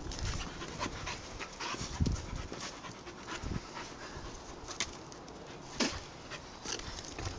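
A dog panting, with scattered short clicks and a few soft thumps.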